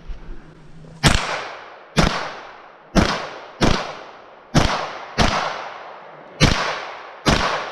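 A string of eight gunshots at a practical shooting match, spaced roughly a second apart with a couple of quicker pairs, each shot ringing out briefly after the crack.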